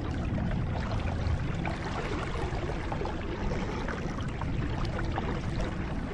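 Small waves lapping and splashing against a kayak hull on choppy water, with a steady low rumble of wind on the microphone.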